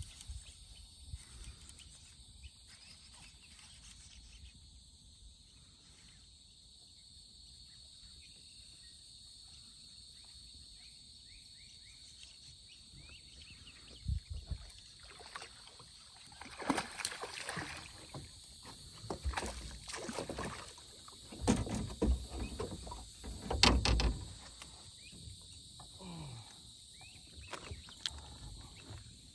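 A hooked largemouth bass splashing and thrashing at the water's surface in irregular bursts over several seconds past the middle, over a steady high chorus of insects.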